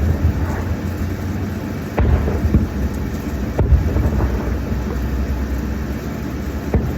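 Fireworks going off at a distance: several sharp booms that roll and echo, over a steady low rumble.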